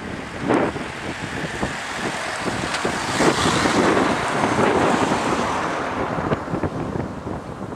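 A car with a bunch of racing cyclists close behind it passing close by, with wind buffeting the microphone; the rushing noise builds to its loudest about three to five seconds in, then eases.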